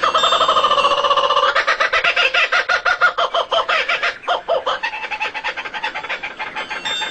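A bird calling in a fast chatter of about a dozen notes a second, each note pitched, with a brief break about four seconds in.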